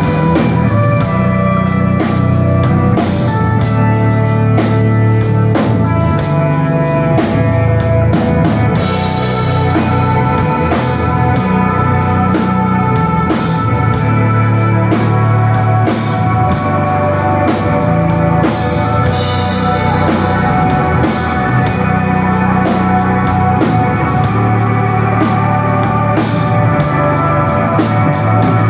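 Instrumental desert-rock band playing live and loud: electric guitar holding sustained notes over bass guitar and a steady drum-kit beat.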